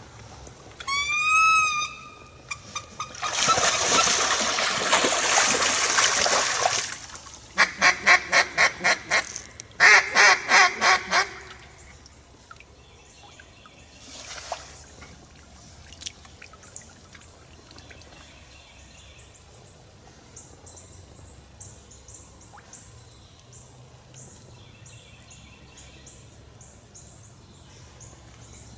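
Duck quacking in two loud, rapid runs of about eight notes each, some four to five notes a second. Before them come a short pitched squeal and a few seconds of rushing noise. Only faint scattered bird calls follow.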